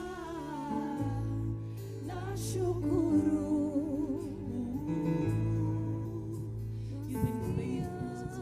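Live gospel worship music: a band holding steady bass notes and chords while a voice sings a wavering melody line over them.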